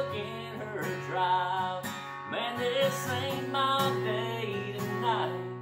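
Takamine acoustic guitar strummed, playing the chords of a country song.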